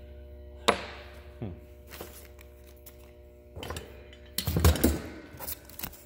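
Irregular clicks and knocks of the plastic and metal parts of a disassembled military three-lever master light switch being handled, loudest in a quick cluster about four and a half seconds in, over a steady hum.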